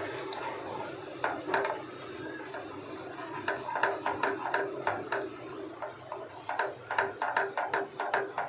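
Spatula scraping and tapping against a small non-stick pan as milk and milk powder are stirred into instant mawa; irregular taps that come faster in the last couple of seconds.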